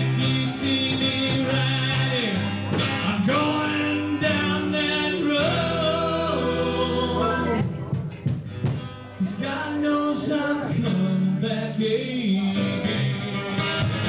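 Live band music: acoustic guitars strummed under held, gliding sung notes, with a brief lull about eight seconds in before the playing picks up again.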